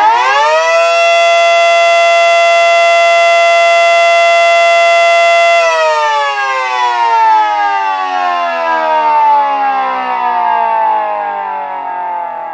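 Mini Model 5T siren on household outlet power, which the owner reckons at 110–115 volts: it finishes spinning up to full pitch in the first second, holds a steady wail for about five seconds, then is unplugged and winds down slowly, its pitch falling to the end.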